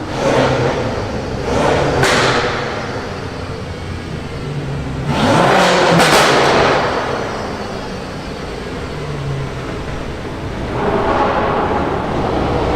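Car engines revving in repeated bursts that swell and fall away, the loudest a little past the middle.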